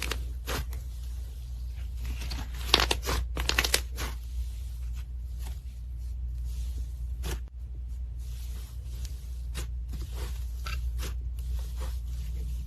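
Slime being pressed and stretched by hand, giving irregular crackles and clicks that come thickest about three seconds in, over a steady low hum.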